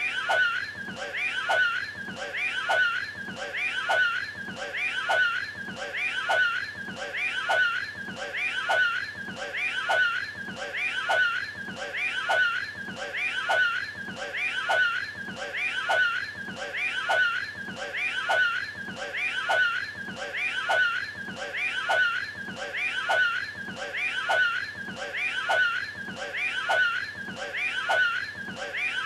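The Cat in the Hat retching and throwing up a hairball, a cartoonish gagging sound. One short clip is looped over and over at an even pace.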